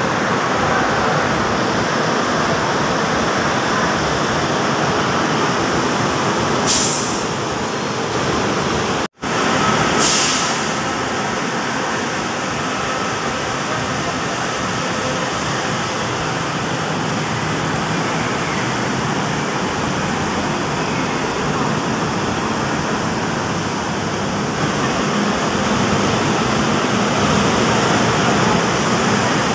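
Steady bus terminal din: diesel buses idling and pulling through, with people's voices mixed in. Two short pneumatic hisses from the buses come about 7 and 10 seconds in.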